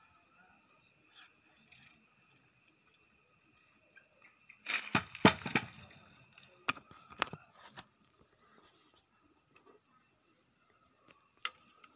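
A quick cluster of sharp metallic clicks and knocks about five seconds in, then a few single clicks. These come from bare engine parts being handled and knocked, over a steady high-pitched background whine.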